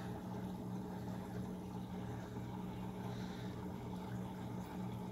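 Steady hum of an aquarium's water pump motor running, with a faint wash of moving water.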